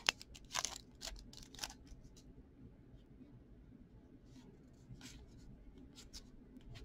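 Cardboard hockey trading cards being flipped and slid off a stack by hand: faint, scattered soft flicks and swishes, a few in the first couple of seconds and more again near the end.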